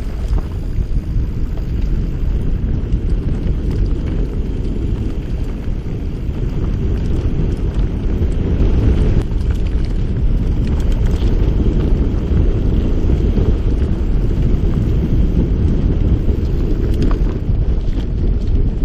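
Steady wind rush buffeting the microphone of a camera on a moving mountain bike, with the low rumble of the ride over a dirt singletrack; it grows a little louder about halfway through as speed picks up.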